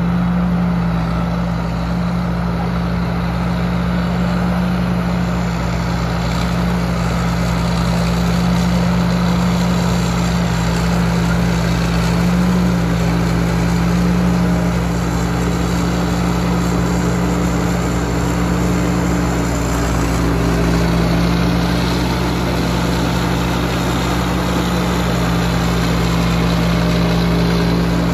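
Tamco S7000 tracked combine harvester running steadily while it cuts and threshes standing corn, its diesel engine and threshing machinery giving a constant low drone. The sound grows slightly louder as the machine comes close.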